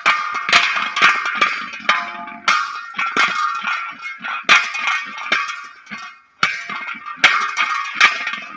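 Metal being banged hard over and over: an irregular run of about a dozen loud clangs, each ringing briefly.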